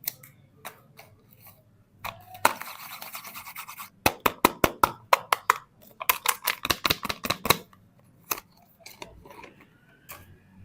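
Soap being opened and handled: a stretch of rapid scratching, then two quick runs of sharp crackling clicks, about eight a second.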